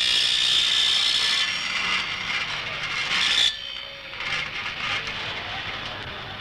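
Power saw cutting through a metal engraving block to trim it to size, a loud, high, screeching cut with a steady whine in it. The cut stops sharply about three and a half seconds in, leaving lower machine and shop noise.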